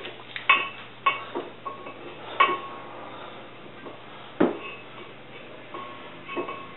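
Steel brake caliper bracket clinking and knocking against the hub and rotor as it is set back in place: a series of sharp metallic clinks, irregularly spaced, some with a short ring.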